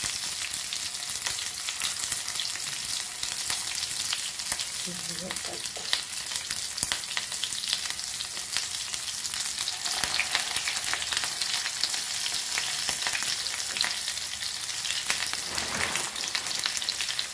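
Hot oil sizzling with a steady dense crackle around potato-stuffed snake gourd pieces shallow-frying in a pan. The sizzle swells about ten seconds in and again near the end.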